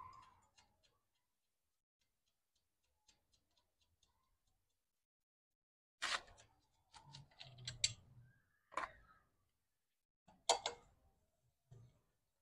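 Metal tools clinking and knocking against a small generator engine's casing: a few faint ticks early on, then a run of sharp, irregular knocks and clinks in the second half.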